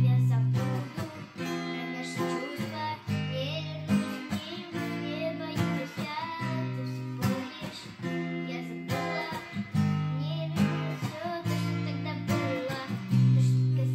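Acoustic guitar strummed in a steady rhythm, accompanying a young girl singing.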